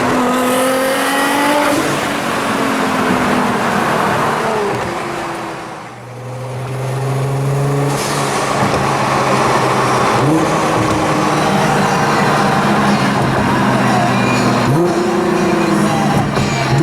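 Nissan GT-R's twin-turbo V6 heard from the passenger seat through a titanium exhaust. The revs rise in the first couple of seconds, drop away about six seconds in, then pick up again, climbing in short sweeps a few times.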